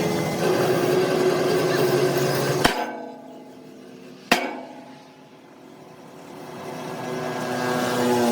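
A running engine or machine hum, then two sharp hammer blows on metal about a second and a half apart; the hum stops at the first blow.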